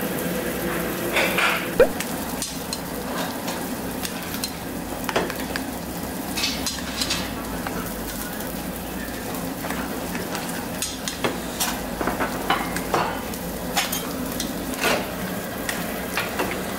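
Pork belly sizzling steadily on a tabletop barbecue grill, with metal chopsticks clicking now and then against a steel bowl as cold buckwheat noodles are stirred.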